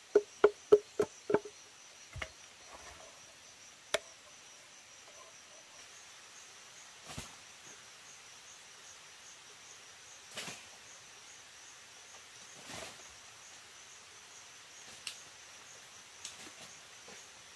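A tool striking wood in a quick run of ringing knocks, about three a second, that stops about a second and a half in. Then come a few scattered single knocks and taps, with a steady high insect buzz throughout.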